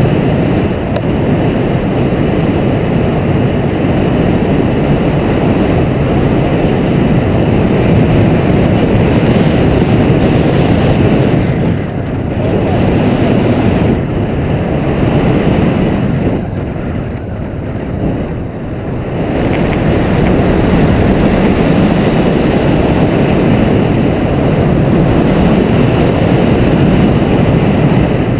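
Loud, steady rush of wind buffeting the microphone of a camera mounted on a hang glider in unpowered gliding flight, the airflow from the glider's airspeed. It eases briefly near the middle and again for a couple of seconds soon after.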